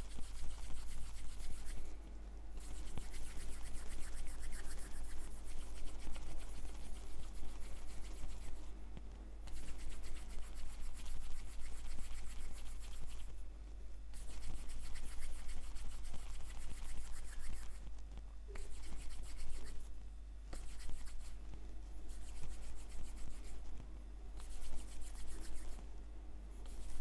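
Palms rubbing back and forth, rolling two overlapped, teased-out ends of wool yarn together to felt them into one strand (a felted join), with several short pauses.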